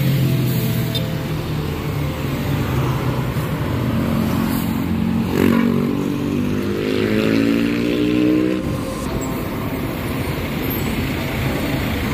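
Road traffic going by: buses and cars passing, with a bus engine revving up, its pitch climbing from about four and a half seconds in until it breaks off near eight and a half seconds.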